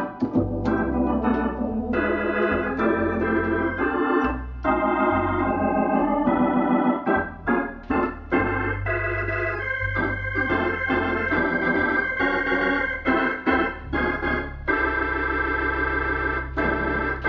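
Hammond X77 organ played with both hands: chords over a steady low bass line, with a run of short, detached chords around the middle. A long held chord closes the passage near the end.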